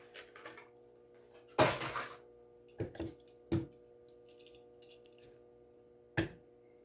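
A diecast toy car's plastic blister pack and card being cut and pried open by hand: four short, sharp knocks and crackles, the loudest about one and a half seconds in.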